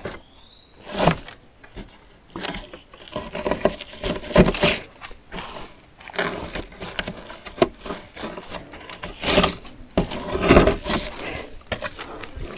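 Building materials and gear being handled and set down: irregular knocks, clatter and rustling, with several louder bumps spread through.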